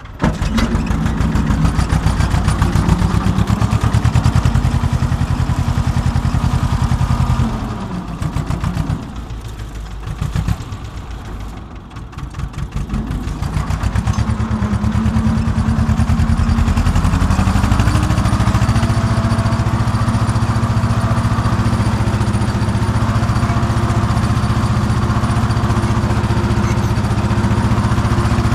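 Farm tractor's diesel engine running, heard from the driver's seat while pulling a ridger. About seven seconds in the engine note drops and falls back for several seconds, then climbs again and runs steadily under load.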